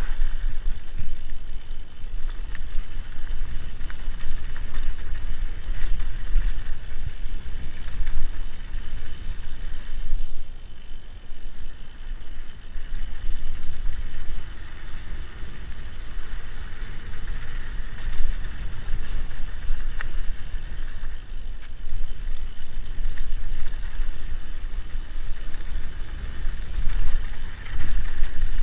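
Mountain bike riding down a dirt and gravel trail: a continuous low rumble of wind buffeting the camera microphone, with the tyres rolling over loose ground and scattered clicks and rattles from the bike.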